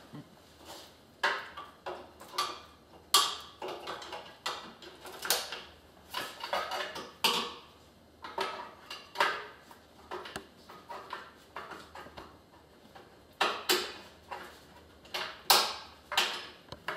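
Irregular metallic clicks, clinks and knocks from hands handling a folded power wheelchair's frame and fittings as it is hooked up to a wheelchair hoist, roughly one a second, with the loudest knock near the end.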